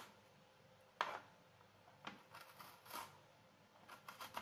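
Small spoon scraping the soft flesh out of split drumstick (moringa) pod pieces on a plastic chopping board: a sharp click about a second in, then short bursts of quick scraping strokes.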